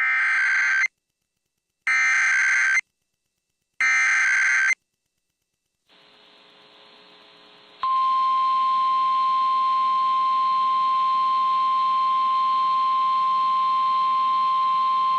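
Emergency Alert System SAME header: three short bursts of warbling digital data tones about two seconds apart. After a brief hiss, about eight seconds in, a loud steady single-pitch alarm tone starts: the NOAA Weather Radio 1050 Hz warning alarm tone that introduces a warning, here a tornado warning.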